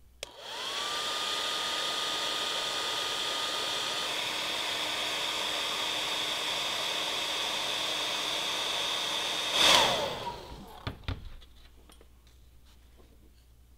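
Handheld hair dryer switched on with a click, its motor whine rising quickly to a steady pitch as it blows for about nine seconds. It then gives a brief louder burst and winds down with a falling pitch as it is switched off, followed by a few light handling clicks.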